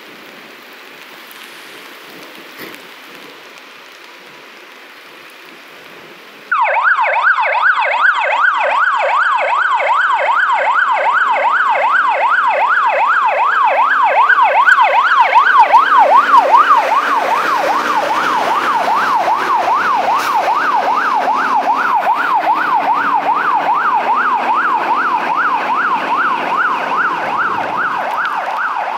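A fire engine's siren switches on about six and a half seconds in, after a steady hiss. It is a fast, continuous up-and-down yelp over the truck's engine, loudest as the truck passes and easing off as it drives away.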